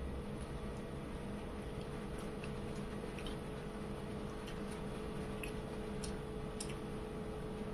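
Eating by hand: scattered small sharp clicks and smacks, irregularly spaced, from chewing chicken and fingers picking meat off the bone, over a steady hum.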